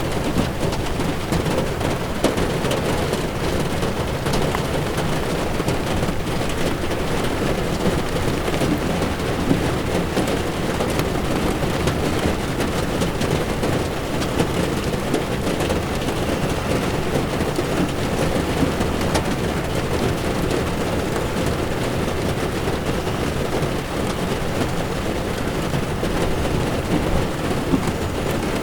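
Heavy rain falling on a moving car's windshield, with tyres running on a wet road: a steady, even wash of noise with faint scattered drop ticks.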